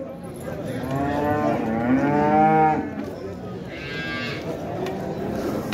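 Cattle mooing: one long moo that starts about a second in and lasts around two seconds, followed by a shorter, higher-pitched call.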